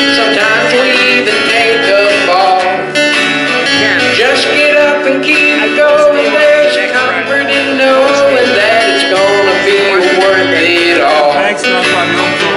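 A man singing a gospel hymn into a microphone over amplified, country-style instrumental accompaniment.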